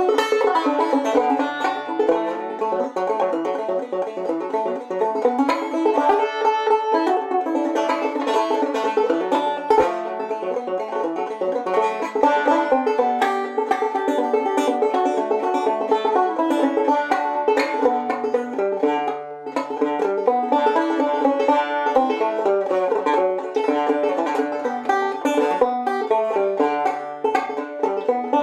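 Open-back banjo played clawhammer style: a continuous old-time tune with the steady bum-ditty down-stroke rhythm and ringing drone string.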